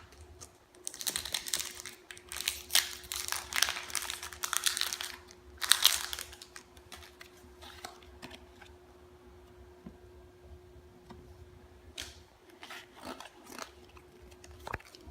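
Foil booster-pack wrapper of a Pokémon trading card pack being crinkled and torn open, loudest in the first six seconds, then quieter scattered clicks and rustles as the cards are handled. A faint steady hum lies underneath.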